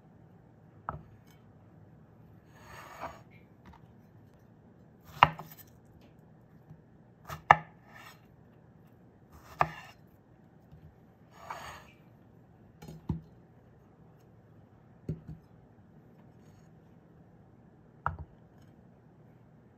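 A knife cutting strawberries on a wooden board: about ten single knocks spaced irregularly a second or more apart, with a couple of short scraping sounds.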